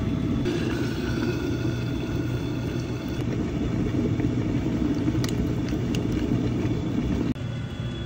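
Steady low rumble of road-vehicle noise, dropping suddenly in level about seven seconds in.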